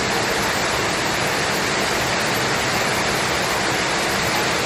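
Rutledge Falls waterfall pouring into its pool, a steady, even rush of falling water.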